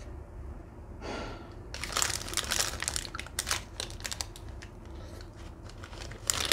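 A take-away food wrapper crinkling and rustling as it is handled and opened to get at the pastries inside. There is a short rustle about a second in, then a busy run of crackling for a couple of seconds that thins out toward the end.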